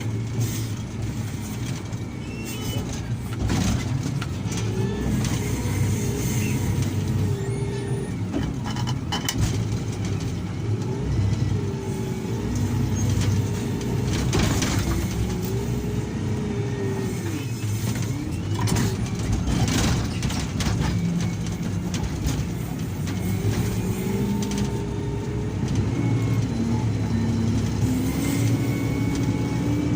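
Diesel engine of heavy earthmoving machinery working under load, its pitch rising and falling as the machine works. A few short sharp noises stand out over the engine.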